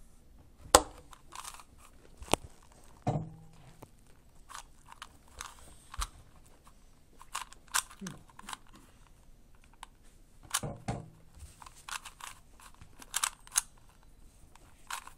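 3x3x3 Rubik's Cube being turned by hand: irregular plastic clicks and clacks of the layers, often in quick clusters.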